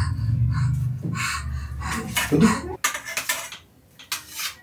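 Kitchen knife slicing through a block of paneer and knocking and scraping on a steel plate: a series of sharp clinks and scrapes. A low rumble runs underneath and cuts off about three seconds in.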